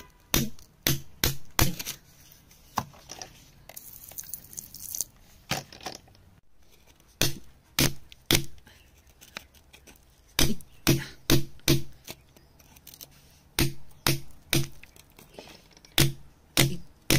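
Flat metal tool scraping and chipping at crumbly sandy rock, a run of sharp, irregular scrapes and taps, often one or two a second, with a brief pause about six seconds in.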